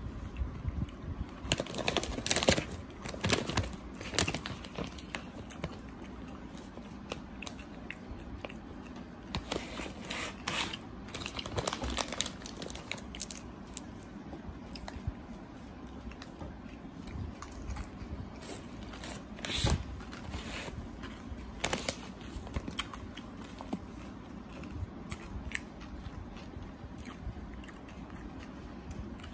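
Mint M&M's being chewed, the candy shells cracking and crunching in irregular clusters of crisp snaps, the densest in the first few seconds.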